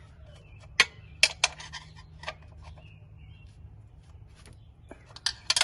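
Sharp, irregular metallic clicks of a hand tool on the oil-pan drain plug of a 2005 Mercedes S600 as the plug is screwed back in and snugged down, a few single clicks then a quick cluster near the end, over a steady low hum.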